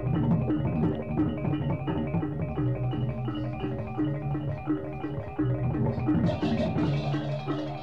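Balinese gamelan music: metal-keyed metallophones play a quick repeating figure over lower held notes. A brighter, hissing layer joins about six seconds in.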